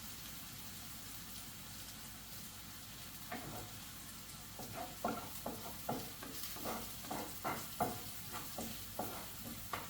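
Chicken frying in a pan with a steady sizzle. From about three seconds in, a run of short knocks and scrapes, about two a second, like a utensil working the pieces around the pan.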